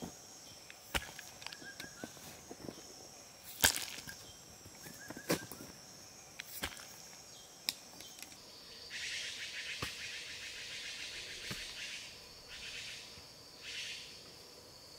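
Sharp thuds of clay soil being dug and clods dropped onto a pile, about five over the first eight seconds, over a steady high insect drone. About nine seconds in, a louder, rapidly pulsing insect buzz sets in for about three seconds, then comes twice more briefly.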